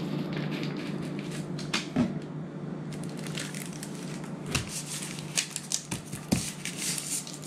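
Sheets of adhesive tile-setting mat and their paper backing crinkling and rustling as they are handled and pressed onto the wall by hand. The rustling grows denser about three seconds in, with a few soft knocks, over a steady low hum.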